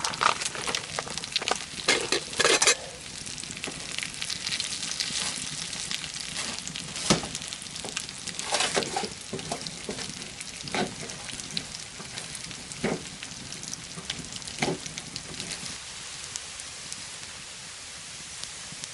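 Bacon and barley-and-lentil mix sizzling in a pan on a wood stove, with a utensil stirring and scraping against the pan now and then, busiest in the first few seconds.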